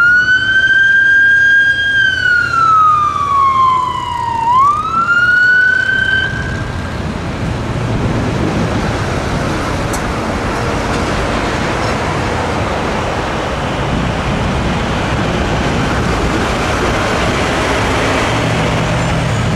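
Police motorcycle siren wailing, sliding slowly up and down twice, then fading out about six seconds in. After that comes the steady noise of freeway traffic.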